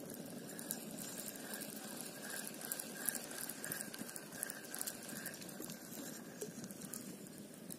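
Spinning reel being cranked to wind in line: a fast run of fine clicking from the reel, with a soft whir that swells about once or twice a second as the handle turns. Behind it is a steady low rush of noise.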